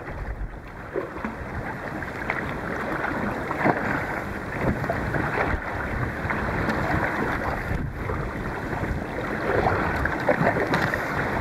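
Paddle strokes and waves splashing against a 12 ft Liquid Logic Saluda kayak in choppy water, with a strong headwind buffeting the microphone.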